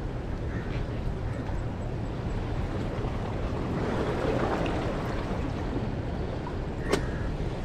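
Wind buffeting the microphone over sea water washing against the breakwater rocks, the wash swelling about halfway through. A single sharp click comes near the end.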